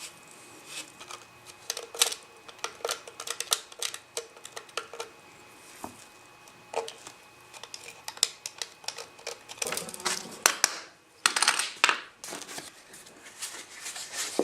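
Irregular small clicks and taps of a hard plastic 3D-printed piece and tools being handled during hand touch-up work, with two longer scraping noises about ten and twelve seconds in.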